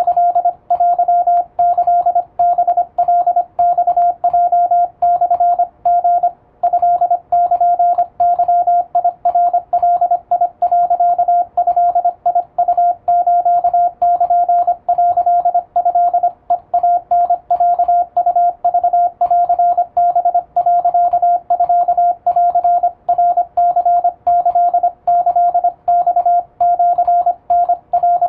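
Japanese wabun Morse code in plain text sent on an electronic keyer, heard as its sidetone: one steady mid-pitched beep keyed rapidly on and off in dots and dashes, with short pauses between characters.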